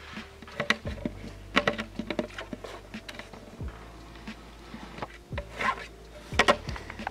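Siberian husky chewing and pawing a hollow hard plastic casing: irregular clicks, knocks and scrapes of teeth and claws on the plastic.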